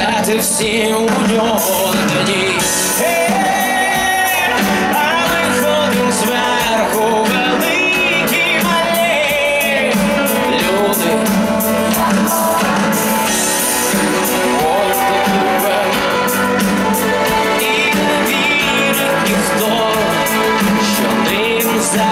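Live pop-rock band playing loud and steady, with drums, electric guitars, bass and keyboards and a sung melody on top, heard from within the audience.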